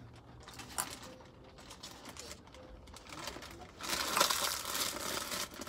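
Faint crunching of almonds being chewed, then, about four seconds in, loud crinkling of a clear plastic zip-top bag of almonds being handled.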